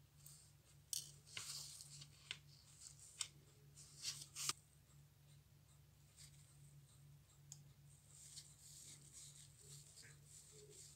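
Faint metallic clicks and scrapes of steel tweezers and a watchmaker's screwdriver on the screws of a Junghans wristwatch movement held in a movement holder. The clicks are sharpest in the first half, loudest at about four seconds in, and give way to softer scratching as the screw is turned. A steady low hum runs underneath.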